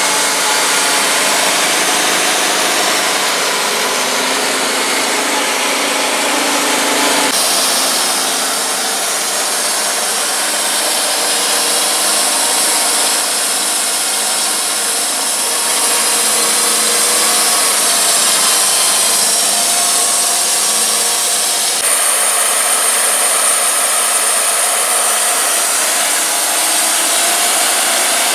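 Wood-Mizer LT35 portable band sawmill running steadily as it saws white oak, a continuous rush of engine and blade through the wood. The sound changes abruptly twice, about seven seconds in and again near twenty-two seconds.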